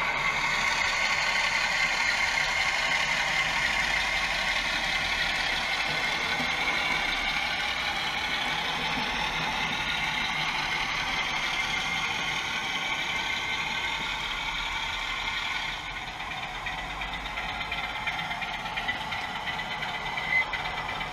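A DCC sound decoder in an OO gauge Class 47 diesel model plays a steady diesel engine running sound through its small speaker as the loco moves. The sound is thin and high, without real bass, and gets a little quieter about three-quarters of the way through.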